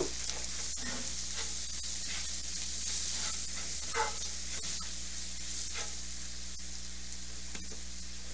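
Butter and caramelized onions sizzling steadily in a cast-iron skillet as a tablespoon of flour is stirred in to make a roux for onion gravy, with a utensil scraping the pan now and then.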